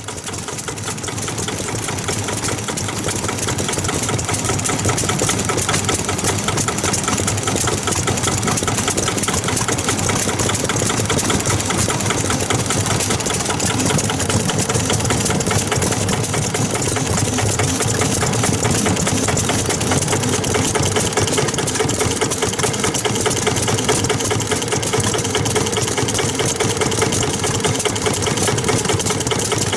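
Yanmar A3 single-cylinder diesel engine running, with a rapid, even firing beat. It grows louder over the first few seconds and then runs steadily.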